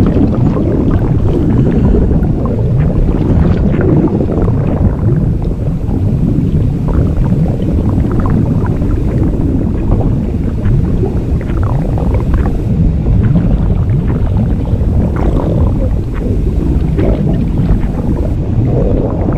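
Blueberry-inflation sound effect: a continuous, loud low rumble with many short rising squeaks scattered through it.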